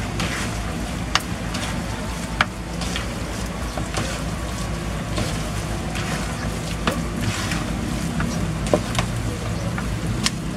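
Pink plastic spatula stirring thick, crumbly bait dough in a basin, giving irregular sharp clicks and scrapes as it knocks against the bowl. A steady low rumble runs underneath.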